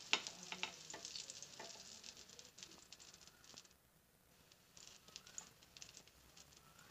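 Oil faintly sizzling and crackling on a hot tawa. There are scattered small pops, thickest in the first couple of seconds, which then thin out.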